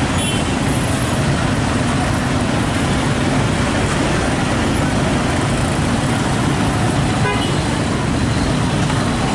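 Steady road-traffic noise from motorcycles idling close by at a level crossing, with a short horn toot about seven seconds in.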